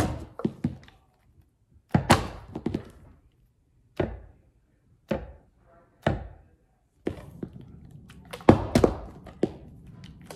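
A partly filled plastic water bottle and a small wooden block knocking and thunking on a wooden tabletop during bottle-flip attempts. The knocks come about every one to two seconds and bunch closer together near the end.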